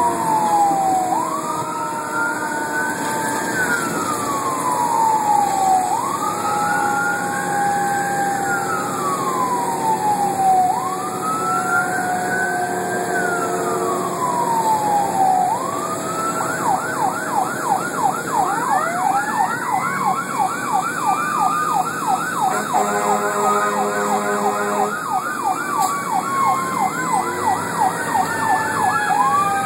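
Fire engine's electronic siren heard from inside the cab: a slow rising-and-falling wail, switching about halfway to a fast yelp of about three sweeps a second, with a slower Q2B-style tone winding up and coasting down over it. A horn blast of about two seconds cuts in near the middle of the yelp, and the wail comes back at the very end.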